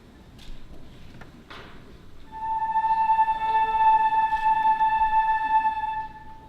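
A single long musical note held steady for about four seconds, starting about two seconds in, after a few faint knocks.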